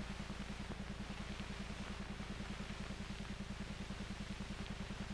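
Steady low hum pulsing rapidly and evenly, with hiss above it: background noise on an old film's soundtrack between lines of narration.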